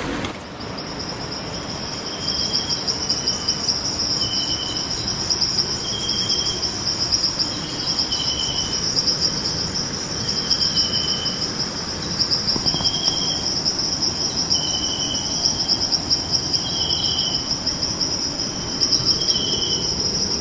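Nighttime jungle insect chorus: a steady, high, pulsing trill that does not let up, with a second, lower caller giving short chirps every second or two.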